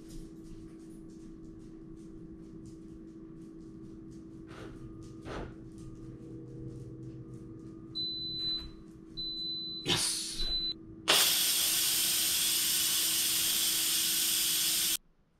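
Electric pressure cooker venting steam at the end of its cooking cycle: a loud steady hiss that starts about eleven seconds in and cuts off suddenly near the end. A faint hum and two high beeps come before it.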